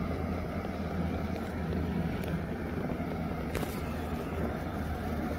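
Steady low hum of the parasail tow boat's engine below, with a rush of wind on the microphone, and a single faint click about three and a half seconds in.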